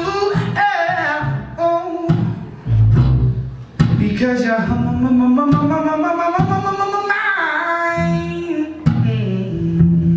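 A man singing, with long held and sliding notes, over his own plucked upright double bass.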